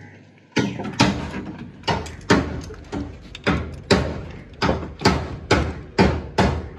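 A rapid series of sharp knocks on metal, about two a second, each ringing briefly, like hammer blows in the engine work. They start about half a second in.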